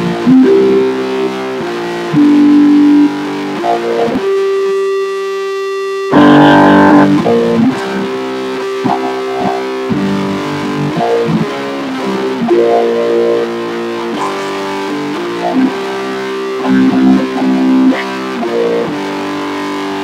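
Distorted instrumental music through effects, with sustained pitched notes and loud swells. For about two seconds near the middle the sound thins to a filtered, hollow tone.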